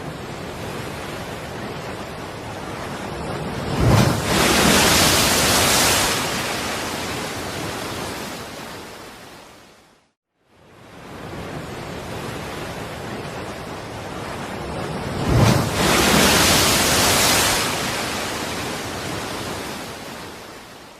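Sea waves breaking on a shore, twice: each swells up, crashes with a short low thud, then washes out in a long hiss that fades away.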